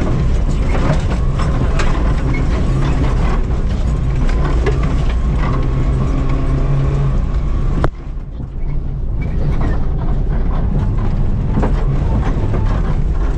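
Rally car's engine running hard at high revs, heard inside the cabin, with stones and gravel clattering against the body. About eight seconds in there is a sharp crack and the engine note drops for about a second before pulling hard again.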